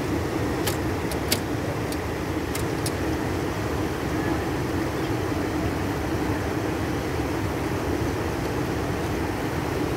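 Floodwater rushing in a steady roar as it pours across a concrete road, with a few sharp clicks in the first three seconds.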